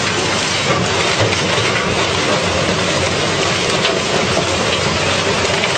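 Heavy car-destroying machine at work: a steady, dense mechanical grinding clatter of metal over a constant low engine hum.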